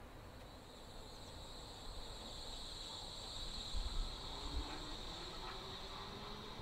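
Siemens-retrofitted Berlin S-Bahn class 480 electric multiple unit pulling away, its new traction electronics giving a steady high-pitched chirp like a Flexity tram instead of the old start-up sound. A fainter lower tone rises slowly as the train speeds up, with a few low thumps about four seconds in.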